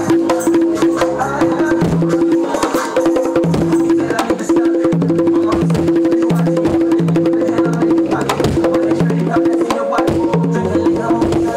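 A set of three conga drums played with bare hands in a steady, repeating groove: ringing open tones on the higher and lower drums alternate with sharper slaps and taps.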